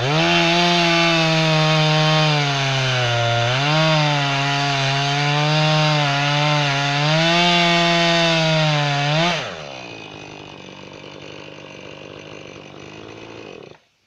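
Jonsered 2240 chainsaw running at full throttle through red oak, its pitch dipping twice as it loads in the cut. About nine seconds in it drops back to idle, then the sound cuts off near the end.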